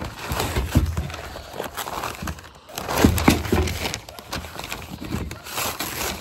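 Rustling and knocking as new grill grate panels are handled and unpacked, with the loudest clatter about half a second in and again about three seconds in.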